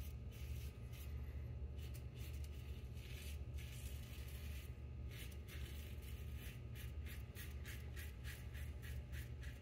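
Double-edge safety razor scraping through lathered stubble on the neck. A few longer strokes are followed, from about halfway, by rapid short strokes at two or three a second.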